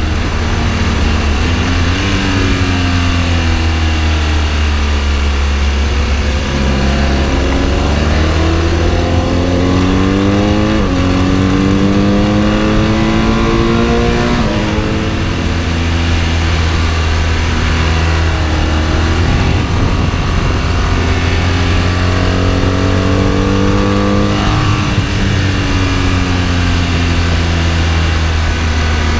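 Sport motorcycle engine under hard acceleration on track, its pitch climbing and dropping back several times at upshifts, then falling near the end as it slows. A heavy low rumble of wind buffets the onboard microphone throughout.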